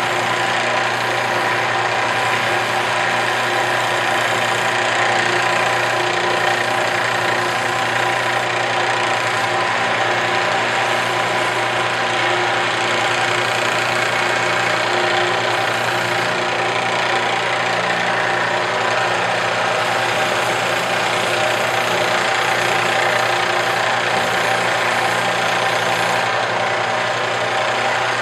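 Belt sander mounted upside down, its motor and belt running steadily, while the edge of a shoe sole is sanded down against the moving belt.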